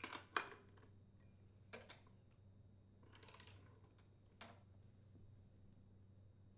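Faint metallic clicks from a torque wrench tightening the flywheel mounting nut on a Briggs & Stratton small engine: a few separate clicks, with a short quick run of ratchet ticks about three seconds in.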